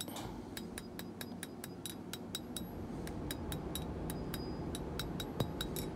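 Quick hammer blows on hot, thin steel strap stock over a blacksmith's anvil, about four a second, each with a short metallic ring, drawing the piece out to a taper.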